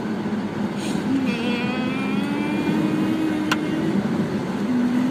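Pickup truck engine running under way over a steady rush of road noise, its note rising slowly as it picks up speed, with one sharp click about three and a half seconds in.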